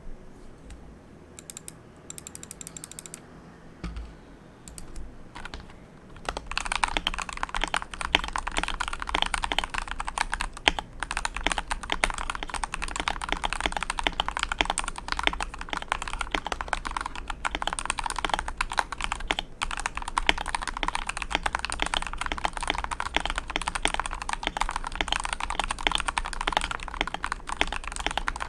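Vortex M0110 mechanical keyboard with Gateron G Yellow Pro linear switches being typed on. A few scattered keystrokes come first, then steady, fast typing from about six seconds in.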